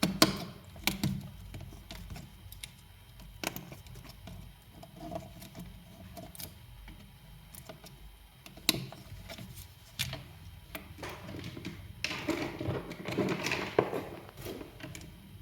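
Scattered light clicks and taps of small objects being handled on a workbench, with a denser stretch of scraping and rustling about twelve seconds in.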